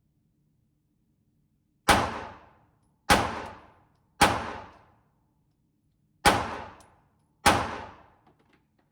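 Five 9mm shots from a Glock 26 compact pistol, each followed by a short echoing decay in an indoor range. They come in an uneven rhythm: two about a second apart, a third a second later, then a pause of about two seconds before two more.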